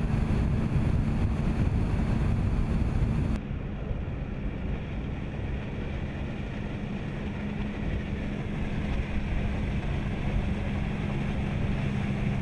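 Motor yacht under way at speed: a steady engine hum with the rush of wind and water. The hiss drops away abruptly about three seconds in, while the engine hum runs on.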